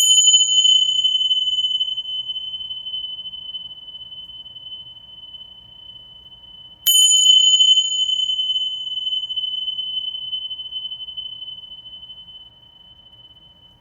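Tingsha cymbals struck together twice, about seven seconds apart, each strike ringing on with a clear high tone that slowly fades.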